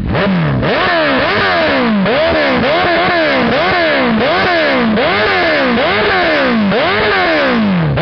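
Suzuki GSX-R1000 inline-four through a Yoshimura M4 GP exhaust, revved in short sharp throttle blips about every two-thirds of a second, each rise falling straight back toward idle. No pops or backfires on the overrun.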